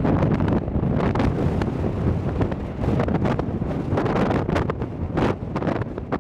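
Wind buffeting the microphone in irregular gusts, a heavy low rumble with crackling flares.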